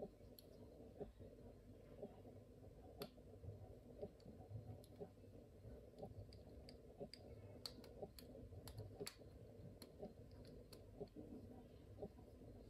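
Faint, irregular small clicks and scrapes of a precision screwdriver tip working against the plastic housing of a bike light's battery pack, coming more thickly about halfway through.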